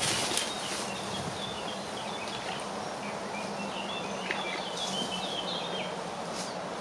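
Outdoor background of a steady hiss, with small birds chirping repeatedly in short high calls through most of it.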